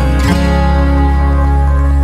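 Background music: strummed acoustic guitar, with a chord change about a third of a second in.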